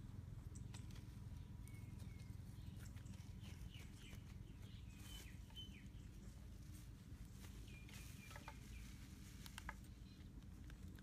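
Faint bird chirps in a few short groups over a steady low rumble, with scattered small clicks.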